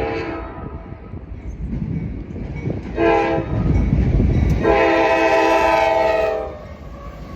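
Norfolk Southern locomotive air horn blowing for a grade crossing. The tail of one blast fades just after the start, a short blast comes about three seconds in, and a long, loudest blast runs from about five seconds to six and a half, the short-then-long close of the crossing signal. Under the horn the locomotive rumbles as it passes.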